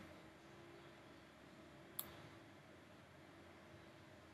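Near silence: faint room hum with a single sharp click about two seconds in.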